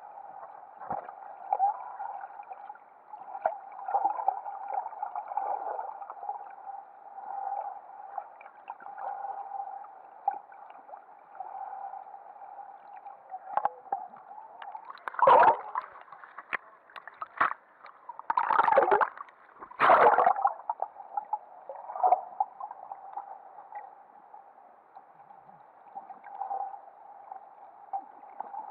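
Muffled underwater sound picked up by a camera below the surface: a steady hum with water sloshing. About halfway through come several short, loud bursts of bubbling and gurgling water.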